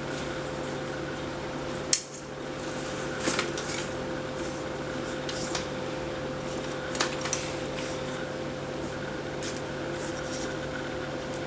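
Metal parts of a JG HK416 full-metal airsoft rifle being handled: a few sharp clicks and clinks, the loudest about two seconds in, over a steady electrical hum.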